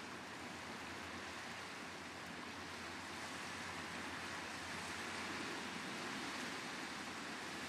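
Steady wash of surf on a rocky shore, an even rushing noise with no bird calls.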